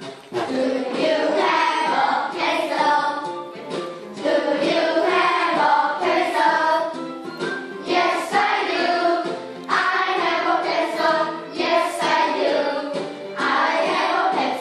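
A class of young schoolchildren singing together as a group, in sung phrases broken by short pauses about 4, 10 and 13 seconds in.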